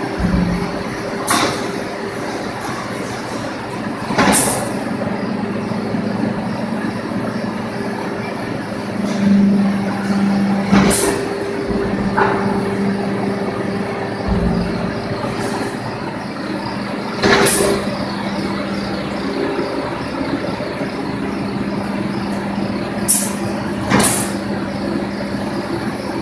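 Fence mesh bending machine running with a steady hum while it bends a welded wire fence panel, with about seven sharp metallic clanks and clicks scattered through.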